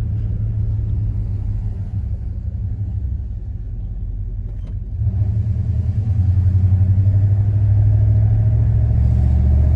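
Dodge Ram 1500 pickup engine heard from inside the cab, running at idle and then pulling away from a stop. About five seconds in the rumble grows louder, and louder again a second later, as the truck accelerates on an automatic transmission test of the first-to-second shift.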